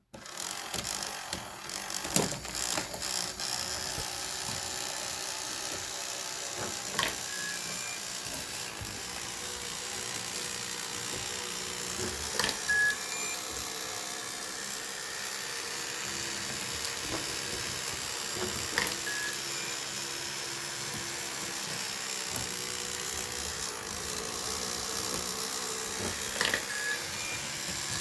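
Fischertechnik ball-track model running: a small electric motor whirs steadily. About every five to seven seconds a ball clicks through the counter, followed by very short electronic beeps at two pitches from the model's three-tone sound generator.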